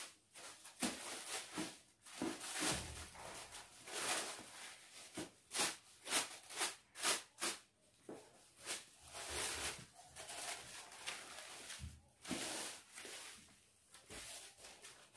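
Wrapping paper rustling and crinkling in many short, irregular bursts as it is folded and smoothed around a gift box by hand.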